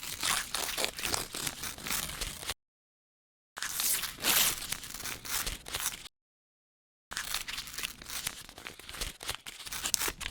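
Paper being torn, in three separate ripping sound effects of a few seconds each, crackly and uneven, with dead silence between them.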